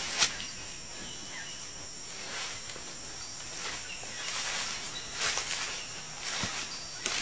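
Irregular footsteps through forest undergrowth, each a short rustling crunch, over a steady high chirring of insects.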